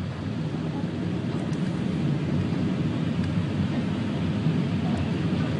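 Steady rumble and hiss of a car driving on a wet highway in rain, heard from inside the cabin, growing slightly louder.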